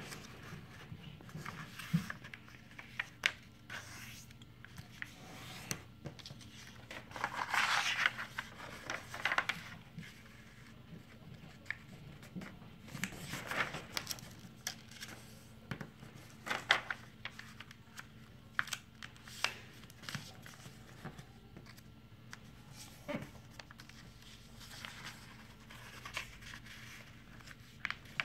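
A sheet of printer paper being folded and creased by hand on a tabletop: irregular rustling and crinkling with sharp taps and swishes as the fingers press and run along the folds, louder in a few short bursts.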